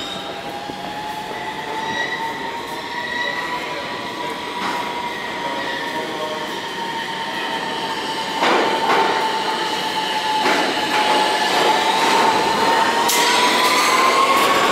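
New York City Subway R160 train pulling into the station: a steady high whine with overtones that dips slightly and climbs again near the end, growing louder as the train comes alongside. A couple of sharp clacks from the wheels partway through.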